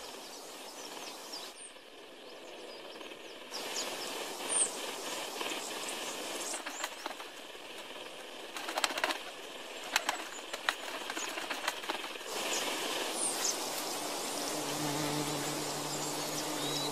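Coronet hummingbird's wings humming as it hovers, with a few short high chirps; a steady low hum sets in over the last few seconds.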